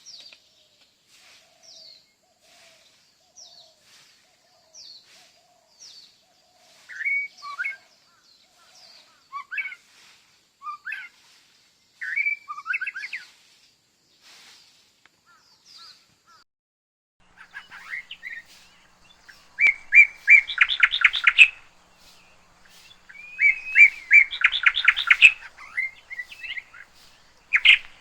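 Several kinds of wild birds calling. A run of short high chirps and a few louder sweeping phrases give way, about two-thirds through, to loud rapid trilling song.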